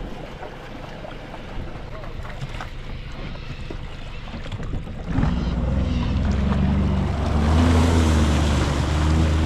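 Jet ski engine starting suddenly about halfway through, then running and revving up as the craft pulls away.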